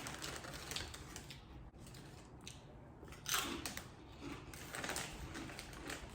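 Crisp chips being crunched and chewed close to the microphone: a string of sharp crunches, loudest a little past the middle.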